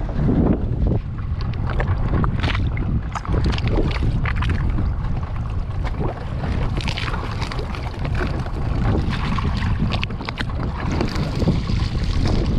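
Small fishing boat under way at sea, its motor running steadily as a low rumble, with wind buffeting the microphone and occasional knocks and splashes of the hull on the water.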